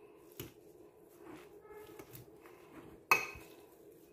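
A fork stirring crumbled cheese and chopped coriander in a bowl: soft scrapes, a light tap about half a second in, and a sharper knock of the fork against the bowl about three seconds in.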